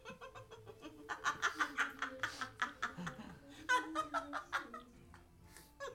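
A person's voice in quick short bursts without words, like breathy laughing, in two runs: from about a second in for two seconds, then again briefly around four seconds in.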